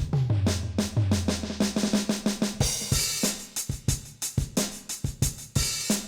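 Donner DED-200 electronic drum kit played through its sound module. It opens with a quick fill around the toms, a crash cymbal comes in about two and a half seconds in, and a steady kick-and-snare beat follows, with another crash near the end.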